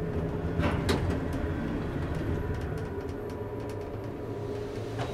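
Low steady rumble with a sharp click about a second in and a few faint ticks after.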